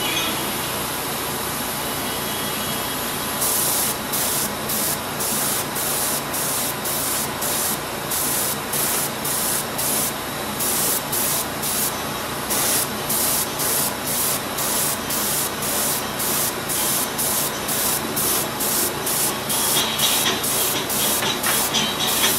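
Airbrush spraying paint. It gives a steady hiss for the first few seconds, then short bursts of hiss, about two a second.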